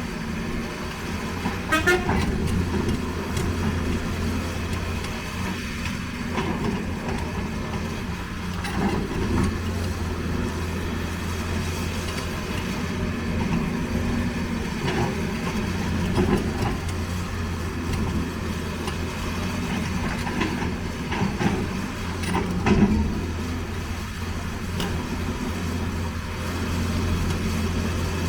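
Diesel engine of heavy earthmoving machinery running steadily, with occasional short clanks and knocks, the loudest about two seconds in and near twenty-three seconds.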